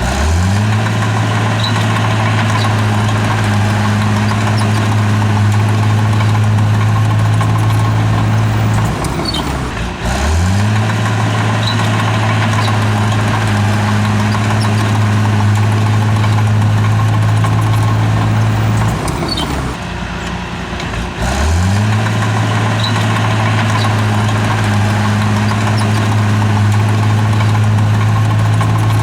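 Heavy diesel engine of a bulldozer working at steady high revs. Twice it drops back briefly, about nine and twenty seconds in, then climbs quickly back up to speed.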